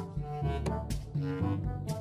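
Background music with a walking bass line and short melodic notes.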